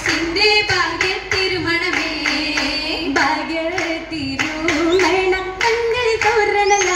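Oppana song: young female voices singing a Mappila-style melody together over hand clapping in a fast, even rhythm.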